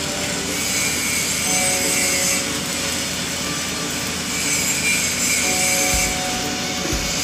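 Stick (SMAW) welding arc crackling steadily as the electrode burns along a pipe joint.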